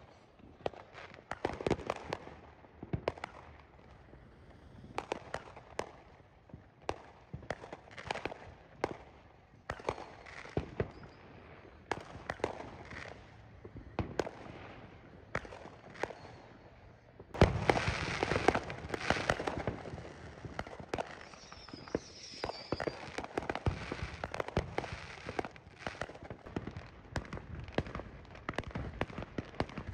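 Aerial fireworks going off at a distance: scattered bangs and pops with echoing tails. A little over halfway through they turn into a dense, rapid run of reports that keeps up to the end.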